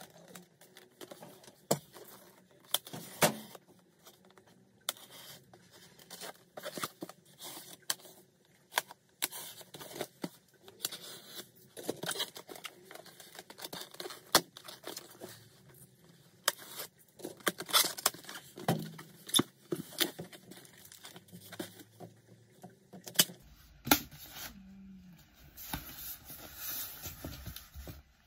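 Parcel packaging being opened and handled: plastic wrap crinkling and tearing, with irregular sharp clicks and knocks from the box and the packs inside.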